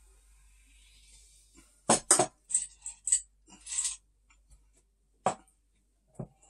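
Glassware clinking and knocking on a hard table: a quick run of sharp clinks and rattles about two seconds in, then a single clink and a duller thump near the end.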